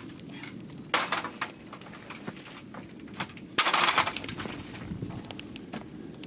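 Clatter of repair work on a greenhouse frame: scattered clicks and knocks, with a short crash about a second in and a longer, louder scraping crash just past halfway.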